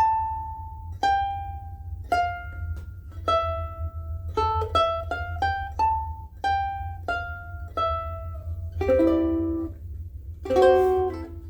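Soprano ukulele strung with UkeSA strings, played high up the fretboard: a slow line of single plucked notes, quicker in the middle, then two strummed chords near the end.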